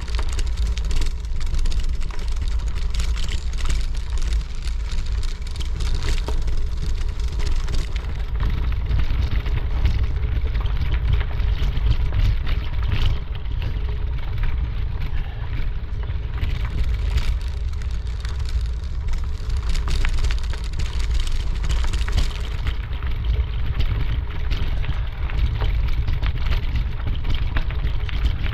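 Wind rumbling on the microphone of a camera carried along a trail, with footsteps crunching through it.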